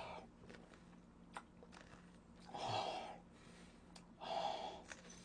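A man huffing air out hard through an open mouth to cool a mouth burning from very spicy chicken: three breathy exhalations, one at the start, one about two and a half seconds in and one about four seconds in, with faint mouth clicks between them.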